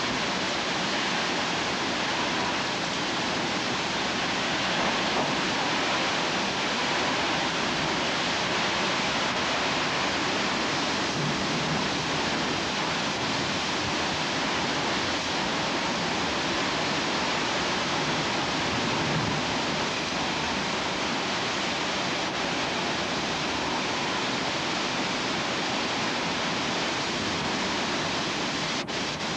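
Hurricane Wilma's wind and heavy rain: a steady, dense rush of noise with no letup.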